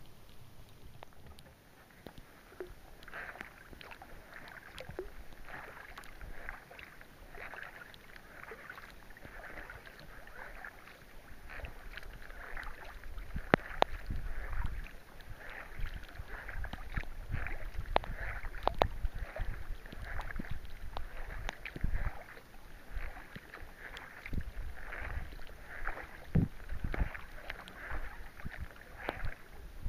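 Kayak paddle strokes splashing in the water in a steady rhythm, about one a second, with scattered sharp ticks and, from about halfway, a low rumble underneath.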